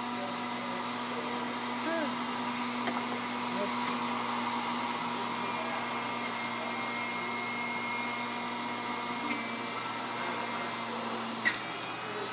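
Electric juicer's motor running with a steady hum while produce is pushed down its feed chute, with a sharp click near the end.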